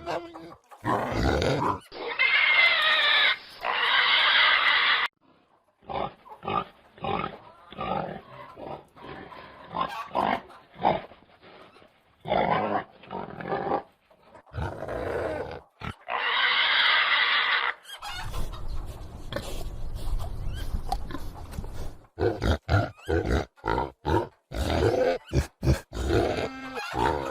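Domestic pigs grunting in many short bursts, with two long, loud squeals: one about two seconds in lasting around three seconds, and another about two-thirds of the way through.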